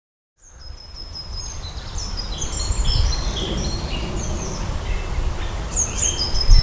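Several songbirds chirping and trilling in short phrases over a steady low rumble; the sound fades in just after the start.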